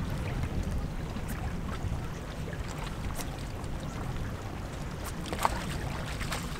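Steady wind rumble on the microphone over seawater lapping against jetty rocks, with scattered light clicks and one sharper tick about five seconds in.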